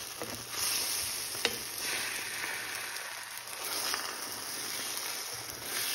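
Scrambled eggs sizzling in a hot, buttered cast iron skillet while a wooden spatula stirs and pushes them around the pan, with one sharp tap about a second and a half in.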